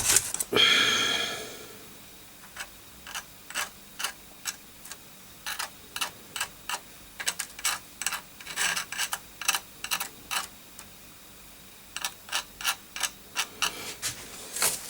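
Irregular sharp clicks and light taps of small hard parts being handled, some in quick clusters, after a brief fading sound at the start.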